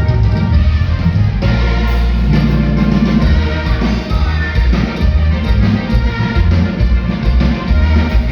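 Loud band music with a prominent bass line.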